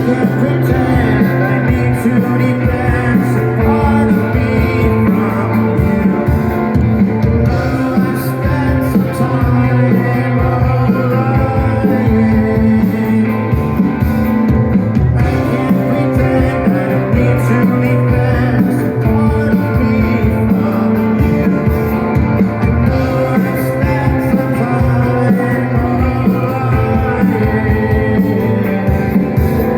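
Rock band playing live: electric guitars and drums with a singer, loud and continuous.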